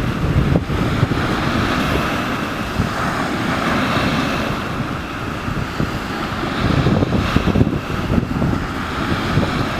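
Wind buffeting the microphone over the wash and splash of water along a windsurf board, with a few irregular knocks and slaps.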